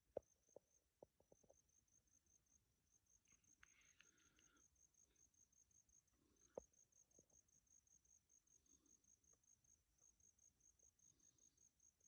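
Near silence, with a faint insect chirping steadily, a high pulse about four times a second. A few faint clicks near the start and another about halfway through.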